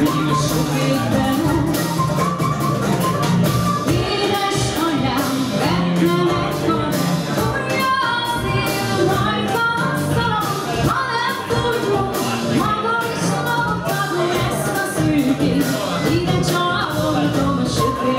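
Live folk-rock band playing: a wooden furulya (Hungarian folk flute) melody over bass guitar, guitar and drums, with a woman singing.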